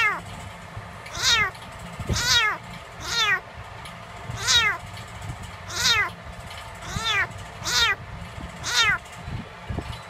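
Young tabby kitten meowing over and over, about nine high cries roughly a second apart, each falling in pitch.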